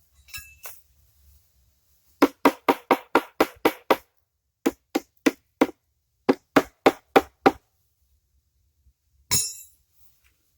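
Hammer blows on a Chrysler 350 V8 B-block's head cover to knock it loose: three quick runs of sharp metallic knocks, about five a second, then a brief scraping rustle near the end.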